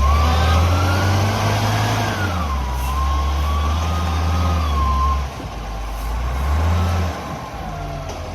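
Logging truck's diesel engine running, its revs stepping up and down, with a whine that rises and falls in pitch over it. The engine drops back about five seconds in and surges briefly again near the end.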